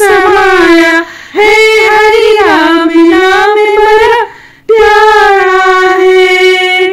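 A woman singing a Hindi devotional bhajan without accompaniment, in three long phrases of drawn-out held notes with brief breaths between them.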